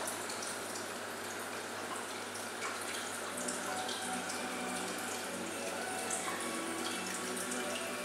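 Steady running, splashing water.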